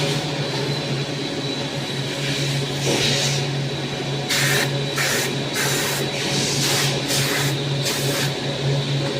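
CNC machine running with a steady hum and a faint high whine, broken by a run of short hissing bursts from about four to eight seconds in.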